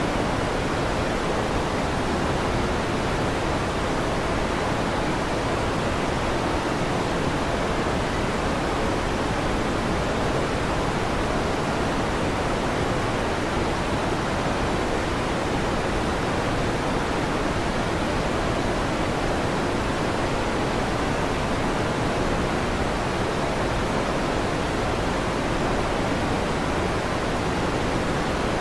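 Electric fan running with a steady, even whooshing hiss.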